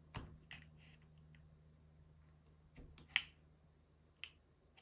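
Sharp clicks and taps of a hobby tool and small plastic model-kit parts being handled during cleanup, about five in all, the loudest about three seconds in.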